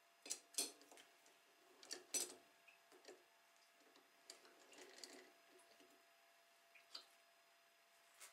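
Faint, scattered light clicks and clinks of the aluminium part and its 3D-printed collet being handled at the lathe spindle as the part is taken out. The loudest pair comes about two seconds in.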